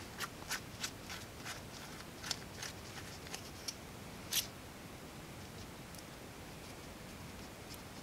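Faint small clicks and scrapes of an XLR connector being unscrewed and taken apart by hand, with the sharpest click about four and a half seconds in, then low room tone.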